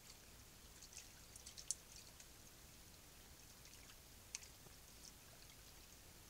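Near silence: a faint trickle of stream water over a steady hiss, with a few small ticks and drips, two of them sharper, about a second and a half in and just past four seconds.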